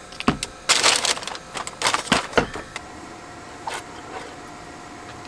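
Takeout items being handled on a wooden table: scattered clicks and knocks of a juice bottle and a styrofoam food box, with a short rustle about a second in.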